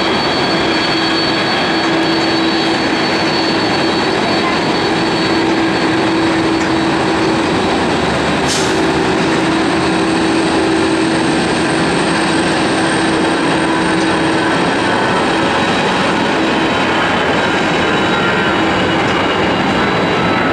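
Boeing 767-300ER's twin turbofan jet engines running at taxi power: a steady, loud whine over a low hum that hardly changes in level. A brief hiss stands out about eight and a half seconds in.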